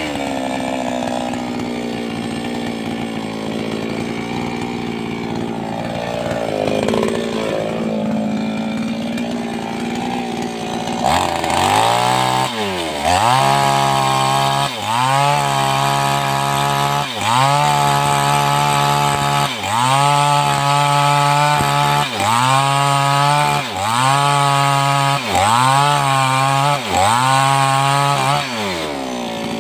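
Two-stroke 588X chainsaw running steadily for about ten seconds, then revved up and let back down about nine times in quick succession.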